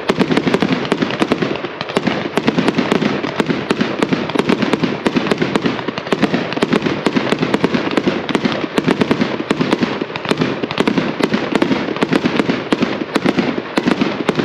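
Consumer multi-shot firework cake firing, its strobe effects popping and crackling densely and rapidly, then stopping abruptly at the very end.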